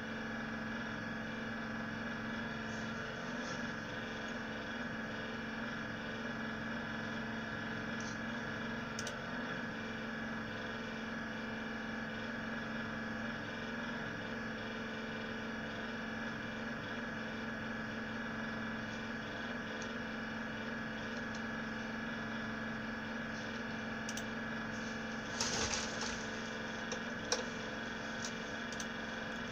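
Ig-Max 1607 500W PC power supply running: a steady drone from its cooling fan with several steady tones over it. A short rustle and a sharp click come near the end.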